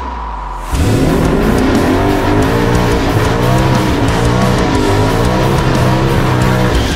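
Twin-turbo 2019 Ford Mustang GT's 5.0 Coyote V8 doing a burnout, starting suddenly about a second in: the engine's pitch rises and falls as it is revved against the spinning rear tyres. Background rock music plays underneath.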